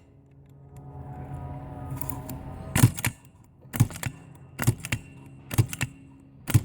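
Manual key punch cutting a Kwikset KW1 blank: after a quiet start, about five sharp metallic snaps come roughly a second apart, each one the punch squeezing a cut into the blade, one per pin position.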